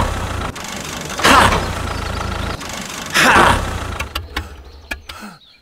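Small electric motor of a homemade toy tractor running under load as it drives through sand, with three louder surges about two seconds apart; the sound fades away about four seconds in.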